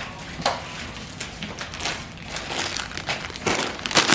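Crinkling and crunching around a bag of Cheetos: a string of short, irregular crackles, loudest near the end.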